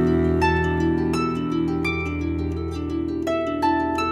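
Harp music: a melody of plucked notes, a couple to each second, ringing out over sustained low bass notes.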